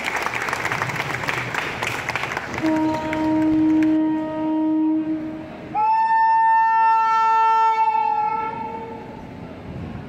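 Applause for the first couple of seconds, then an Indian Railways WAP7 electric locomotive's horn sounds a steady low note for about three seconds, followed by a louder, higher note for about three more.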